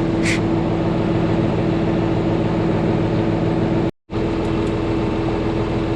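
Tractor engine idling steadily with a constant hum, with a short high squeak just after the start. The sound drops out completely for a moment about four seconds in, then the idle carries on.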